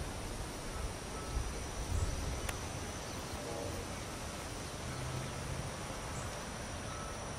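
Outdoor ambience: wind rumbling on the microphone over a steady high-pitched insect drone, with a faint short call about halfway through.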